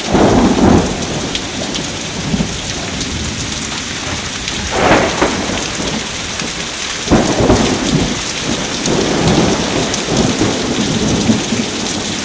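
Thunderstorm: steady rain falling throughout, with rumbles of thunder swelling up right at the start, about five seconds in, and again several times from about seven seconds on.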